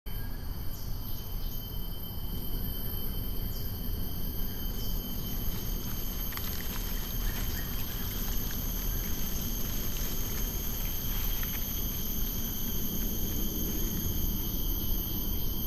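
A steady ambient bed: low rumbling noise under several steady high-pitched tones, with scattered faint clicks.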